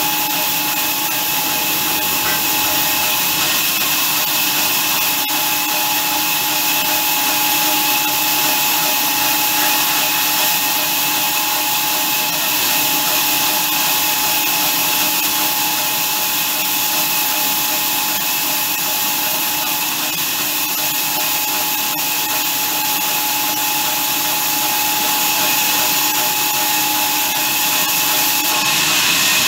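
Horizontal band sawmill running: a steady mechanical whine with a high hiss. Near the end one tone drops out and the sound grows slightly louder and brighter.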